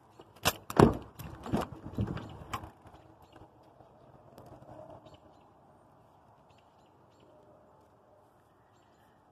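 A car's rear door being opened: a quick series of clunks and knocks from the handle and latch over about two seconds, the loudest near the start, then only faint rustling of handling.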